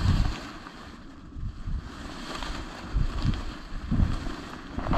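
Wind buffeting the microphone, with a few dull thumps.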